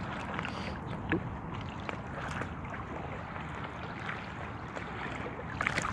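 Small waves lapping at a lake shoreline: a steady wash of water with scattered small splashes, a few sharper ones near the end.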